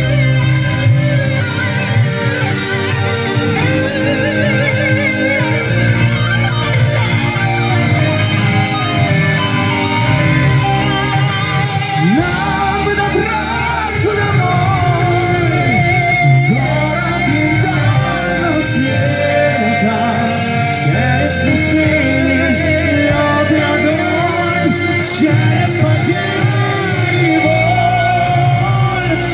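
Live rock band music in a hall: a lead line with wavy vibrato and bending pitches over a steady bass and drum beat.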